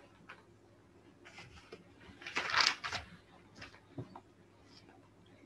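Scattered light clicks of a computer mouse, with a short rustling hiss about two and a half seconds in that is the loudest sound.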